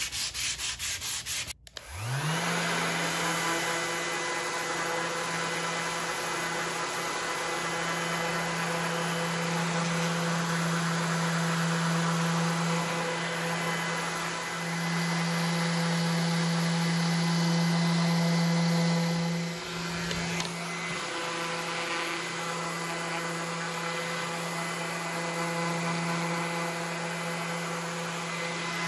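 A few quick back-and-forth strokes of a hand sanding block on mahogany, then a Festool ETS 150/3 random orbital sander spins up fast and runs steadily with a constant hum as it sands the face of a mahogany picture frame. Its sound dips briefly about two-thirds of the way through, then carries on.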